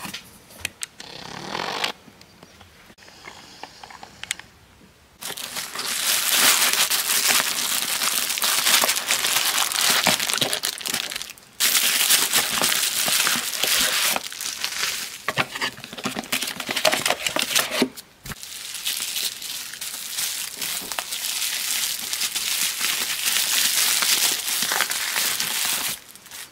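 Crinkling, crackling noise in three long stretches, broken off briefly about 11 and 18 seconds in, with fainter scattered clicks in the first few seconds.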